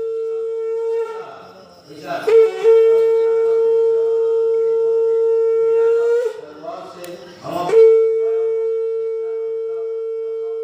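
Conch shell (shankh) blown in long, steady blasts on one pitch. The first blast ends about a second in. After a breath, a second blast runs about four seconds and bends slightly upward as it ends. A third blast starts near the three-quarter mark and carries on.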